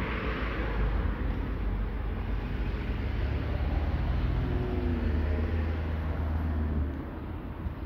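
Road traffic going by on a street, with a steady low rumble; a vehicle's engine sound rises and falls around the middle, and the rumble eases off near the end.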